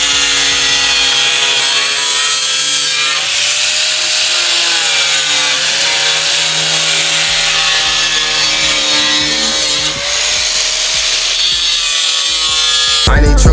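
Power tool cutting through a car's body panel: a loud, steady rasping cut with a motor whine that wavers slightly in pitch. Music starts abruptly near the end.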